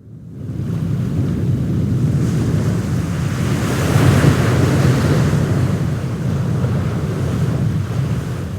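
Seaside wind and surf noise, a steady rushing that is heaviest in the low range and swells about four seconds in, fading in at the start.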